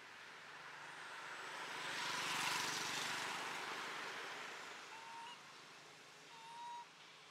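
A vehicle passing by, its noise swelling to a peak about two and a half seconds in and then fading away. Two short, high, steady notes follow near the end.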